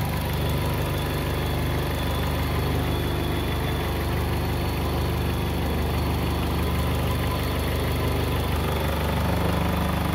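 Mazda 626 engine idling steadily, running again after flood water was dried out of its electrics.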